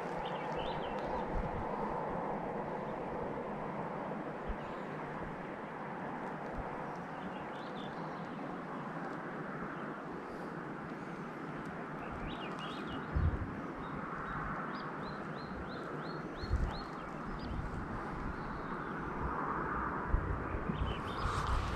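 Outdoor ambience: a steady background rush with a small bird chirping now and then, including a quick run of about eight short high notes around the middle. Two dull thumps about halfway through.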